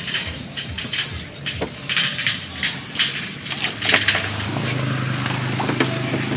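Irregular sharp clattering and knocks, then a steady low motor hum that starts about four and a half seconds in.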